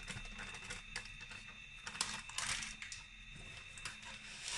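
Kitchen paper towel crinkling and rustling with small irregular clicks as it is handled around a block of firm tofu, a louder rustle about two and a half seconds in, over a faint steady hum.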